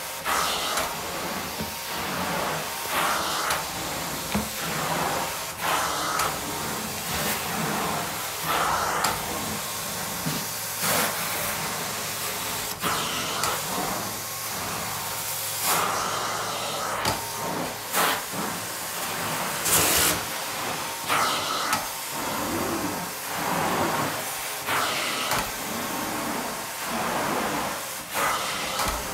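Carpet steam-cleaning (hot water extraction) wand hissing with suction as it is worked back and forth across carpet, the hiss surging every couple of seconds with each stroke.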